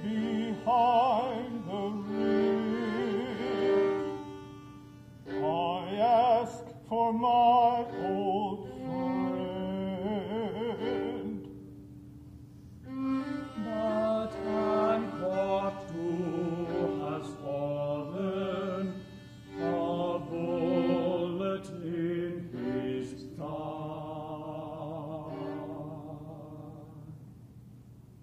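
Noh chant (utai) sung in English: slow, drawn-out vocal lines with a wide wavering vibrato, breaking off briefly twice and growing quieter and steadier near the end.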